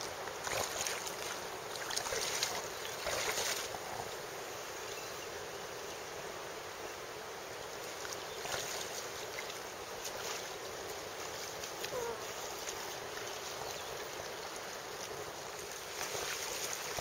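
A river's current running steadily over rocks and riffles, with a few brief louder swishes in the first few seconds.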